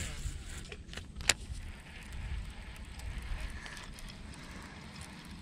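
A cast with a baitcasting rod and reel: a short swish at the start, one sharp click just over a second in, then quiet reeling over a low rumble.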